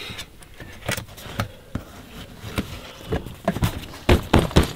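Scattered clicks and knocks as the straps and fittings of an iKamper rooftop tent are handled and loosened, with a quick run of louder knocks near the end.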